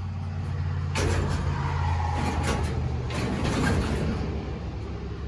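Clutter being shifted and scraped aside for about three seconds, starting about a second in, over a steady low hum.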